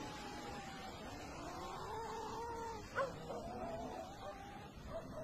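An animal whining in long, wavering, rising and falling cries, broken by a short sharp yelp about three seconds in.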